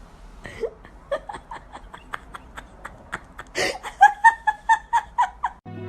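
A person laughing: quiet, breathy bursts of laughter in a quick even run, then louder voiced 'ha-ha-ha' laughter in the last couple of seconds.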